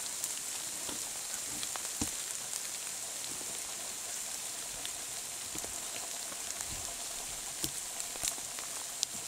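Light rain in a forest: a steady fine hiss, with scattered drops tapping here and there.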